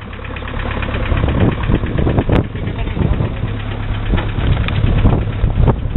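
Engine of a soft-top military-style jeep idling steadily, with a sharp click a little over two seconds in.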